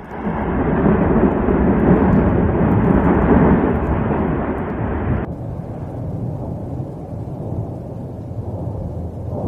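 Yasur volcano erupting: a loud, continuous rumble that turns abruptly duller and lower about five seconds in.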